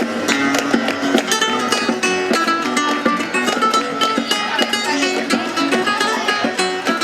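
Chirigota band playing an instrumental passage at the start of a popurrí: acoustic guitars strummed in a steady rhythm, with held melody notes above, no singing.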